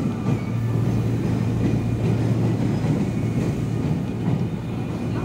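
JR 281 series Haruka limited express train standing at the platform, its onboard equipment giving a steady low hum.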